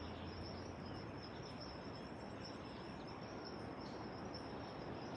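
Steady high-pitched insect trill, cricket-like, held on one tone over an even background hiss.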